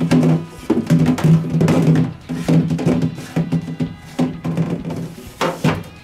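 Background music with drums.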